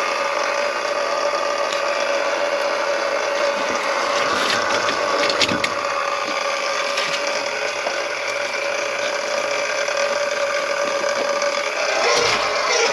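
Electric drain-cleaning machine running steadily, its motor humming as the cable turns in the kitchen sink drain line, with a few short knocks partway through.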